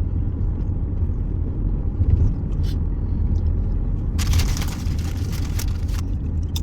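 Car driving, with a steady low rumble, and a burst of hissing noise about four seconds in that lasts under two seconds.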